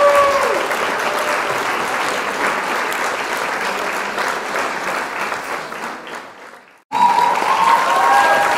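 Crowd applause with cheering whoops. It fades out about six seconds in, and after a moment's silence it starts again at full level.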